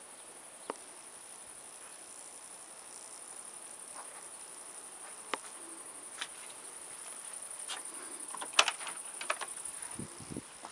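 Footsteps and a few single clicks, then a cluster of louder clicks and rattles from the handle and latch as a wooden front door is opened, with a few low thuds near the end. A steady high hiss runs underneath.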